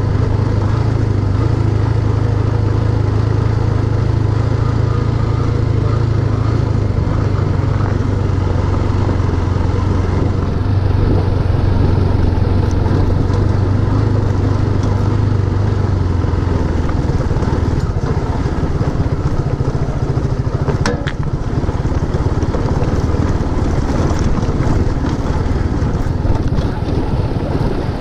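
Motorcycle engine running steadily while under way, with a rushing noise over it. The engine's steady note changes a little past halfway, and a single sharp click comes a few seconds later.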